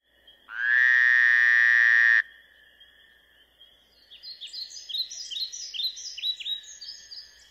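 Nature sound effects: a loud, steady, buzzing call that starts about half a second in and stops abruptly after about a second and a half, over a faint high steady tone. From about four seconds in comes a run of quick falling chirps, roughly two a second.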